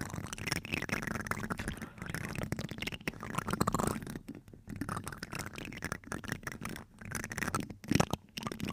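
Two plastic spoons scraping and rubbing over a microphone's mesh grille, a close, dense scratching of many quick strokes, with one sharper, louder scrape near the end.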